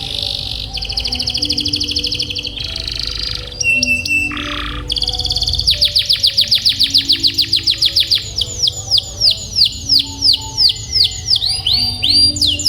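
Domestic canary singing: fast rolling trills of rapidly repeated high notes, then from about six seconds in a long series of clear downward-sweeping notes that slow down near the end.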